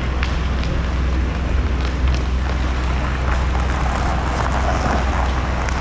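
Steady low rumble and hiss of an inline hockey rink in play, with a few faint clicks of sticks and pucks on the sport-court floor.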